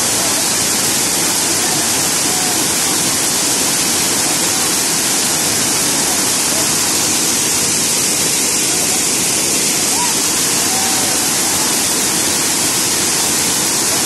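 Waterfall close by, white water pouring and splashing down a steep rock face in a loud, steady rush with no letup.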